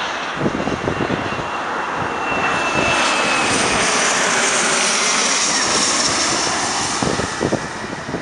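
Boeing 777-300ER's twin GE90-115B turbofans at takeoff thrust during the runway roll: loud rushing jet noise with a high whine, growing louder about two and a half seconds in as the aircraft passes.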